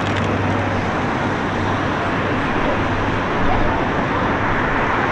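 Busy city street ambience: a steady wash of road traffic with indistinct voices of passers-by.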